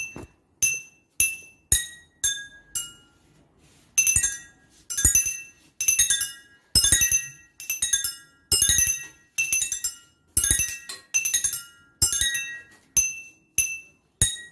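Glass cups holding different amounts of water struck one after another with a metal knife, each ringing a clear note of its own pitch like a glass xylophone. A first run of strikes steps down in pitch, then after a short pause the notes come quicker, about two a second, often in pairs.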